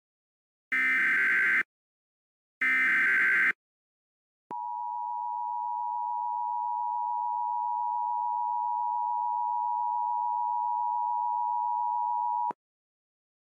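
Emergency Alert System SAME header: two short, harsh digital data bursts about two seconds apart, the last two of the three header bursts. After a brief pause comes the steady EAS two-tone attention signal, held for about eight seconds before it cuts off sharply, announcing the next warning.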